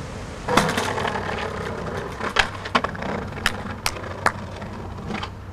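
A skateboard dropped onto concrete paving about half a second in, then rolling along with a string of sharp clacks as the wheels cross the joints between the paving slabs.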